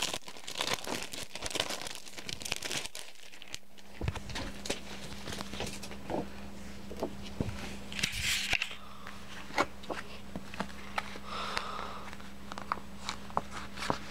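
Clear plastic file and its cellophane wrapper being handled: crinkling, rustling plastic with scattered sharp clicks and taps. A steady low hum starts about four seconds in.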